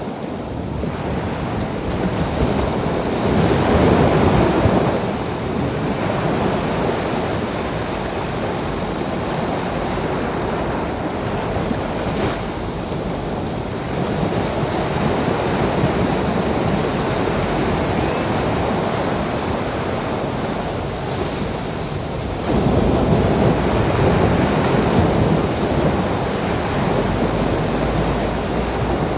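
Ocean surf washing onto a shore in a continuous rush, swelling louder as larger waves break a few seconds in and again about three-quarters of the way through.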